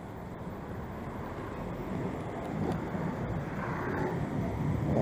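Street traffic noise at a city intersection, with an approaching car's engine and tyres getting louder through the second half.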